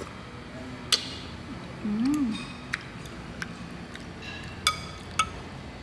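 A metal spoon clinks sharply against a ceramic soup bowl several times while scooping broth, and some clinks ring briefly. A short hummed voice sound comes about two seconds in.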